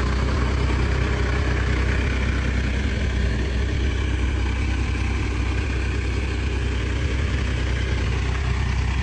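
Case 580 backhoe's engine idling steadily.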